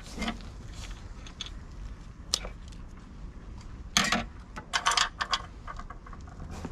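Handling noises of wire, solder and small metal parts: scattered light clicks and rustles, with a busier run of sharp clicks about four to five and a half seconds in.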